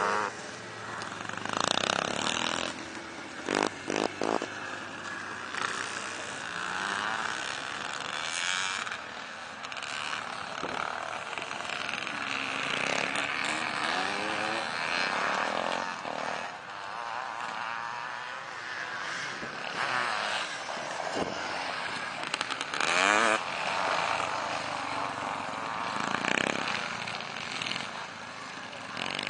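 Several vintage motocross bikes running together on a dirt track, their engines revving up and down in overlapping rising and falling glides as riders accelerate and shift. It is louder about two seconds in and again around twenty-three seconds.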